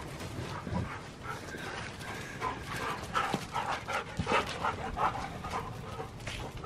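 Two dogs playing rough, giving short whines and yips. Most of the calls come in a quick run a few seconds in.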